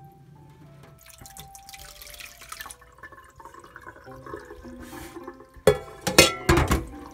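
Water dripping and trickling from rinsed salmon roe draining in a plastic colander over a stainless steel sink. About six seconds in, a short burst of loud knocks and wet splatter comes as the roe is tipped from the colander into a bowl.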